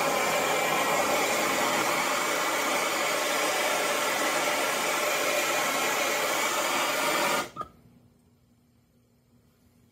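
Handheld gas torch burning with a steady hiss as it heats a copper pipe joint for soldering, then shut off suddenly about seven and a half seconds in.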